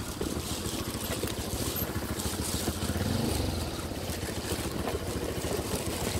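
Motorcycle engine running steadily as the bike rides over a rough dirt track.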